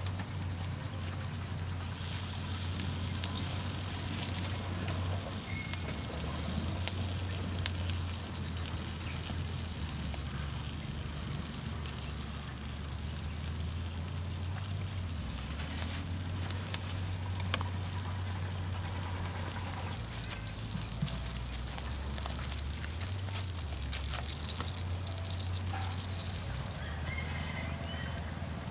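Fish roe sacs sizzling on a flat stone heated by a wood fire, a steady hiss with a few sharp crackles, over a low steady rumble.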